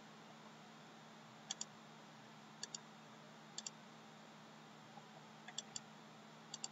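A computer mouse button clicking: about five short pairs of clicks roughly a second apart, over a faint steady hum.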